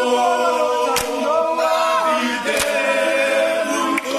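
A group of men singing a cappella in harmony, with voices held on long notes, like a team chant. A few sharp knocks cut through about one, two and a half, and four seconds in.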